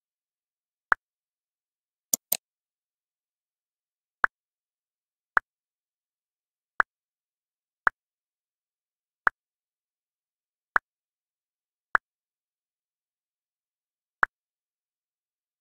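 OptiKey on-screen keyboard's key-selection click sound, a short click played each time a key is picked by eye-tracking dwell, about once every second or so. About two seconds in comes a sharper, brighter double click.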